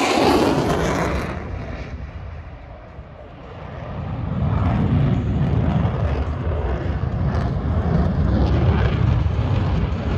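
Single-engine F-16 Fighting Falcon jet passing low: its engine noise sweeps down in pitch and fades over the first two to three seconds. A deep rumble of jet noise then builds again from about four seconds in and holds.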